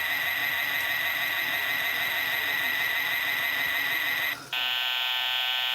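Toy washing machine's electronic buzzer sound: a steady buzzing tone that breaks off a little over four seconds in and gives way to a different buzz.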